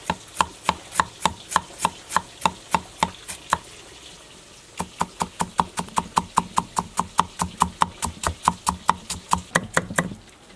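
Cleaver blade knocking on a wooden chopping board, slicing peeled ginger root into thin strips with quick, even strokes: about three to four strokes a second, a pause about four seconds in, then a faster run of about five a second.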